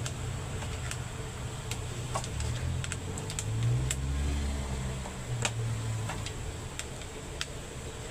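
Isuzu 10PC1 diesel engine running, its low note swelling briefly about four seconds in, with scattered sharp ticks over it.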